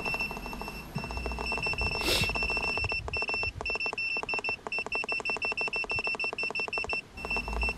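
Kingbolen BM520 battery tester beeping almost continuously as its arrow key is pressed again and again to step up a setting: one high beep tone broken by short gaps, a few times a second. There is a brief hiss about two seconds in.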